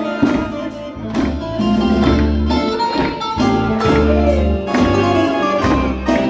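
Live Greek band playing zeibekiko dance music: a plucked bouzouki melody over keyboards and a heavy bass beat.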